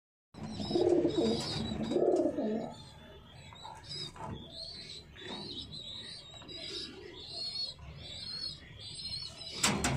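Domestic pigeons cooing, loudest in the first few seconds, with short high chirps from other birds repeating throughout and a sharp click near the end.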